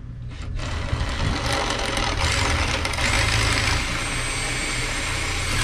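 Cordless drill drilling out a rivet at the awning's end cap, running steadily with a faint high whine. It starts about half a second in and stops suddenly.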